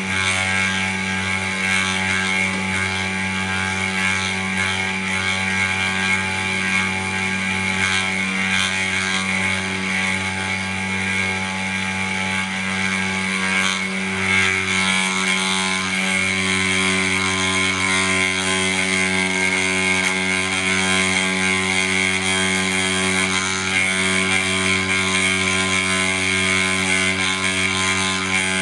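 Snapmaker's CNC module running a carving job: its spindle motor running steadily, with a low hum and a high-pitched whine and a few light clicks from the cutting.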